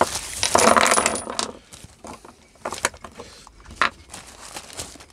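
Small metal bolts dropped into a container: a rattling metallic clatter in the first second or so, then a few separate clinks as they settle or are handled.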